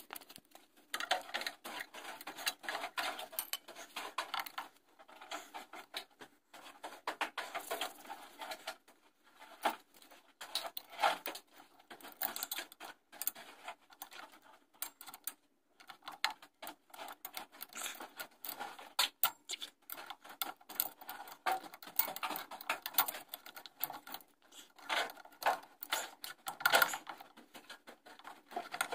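Irregular metallic clicks, taps and scraping as hands work on a truck's rear drum brake, with a few short pauses.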